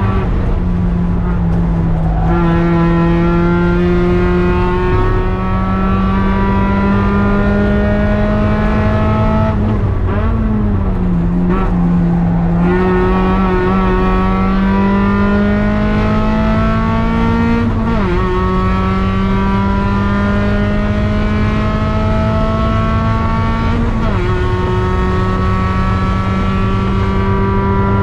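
Mazda Miata NB's four-cylinder engine heard from inside the cabin under hard acceleration. The revs climb slowly and then drop suddenly at the upshifts about 18 and 24 seconds in. Around 10 to 12 seconds in the revs waver and dip, as when lifting off and downshifting for a corner. Road and wind noise run steadily underneath.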